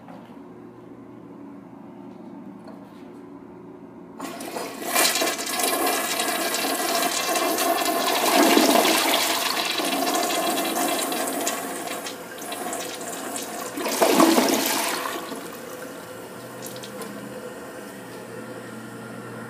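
Crane Hymont toilet flushing: a loud rushing and gurgling of water starts about four seconds in and runs for about ten seconds, surging a second time near its end in a double flush, then falls to a quieter steady run of water.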